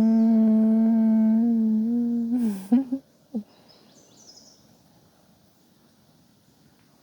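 A woman humming one long, steady meditative om-style note, which wavers and stops about two and a half seconds in, followed by a short breath. Then near quiet with a few faint bird chirps.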